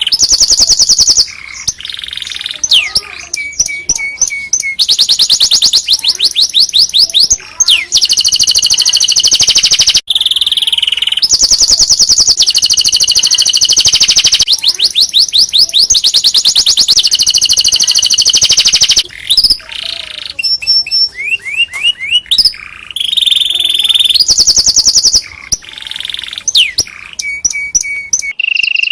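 Domestic canary singing loudly in long, high-pitched phrases of fast trills and rolls, with a fresh phrase every second or two after a short break.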